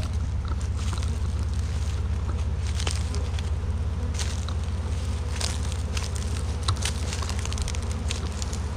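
A honeybee swarm of tens of thousands of bees flying close around, making a steady, dense buzzing hum. Scattered sharp crackles and clicks run through it.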